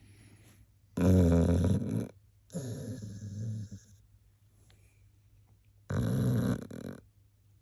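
A sleeping dog snoring: a loud snore about a second in, a quieter one right after it, and another loud snore about five seconds later.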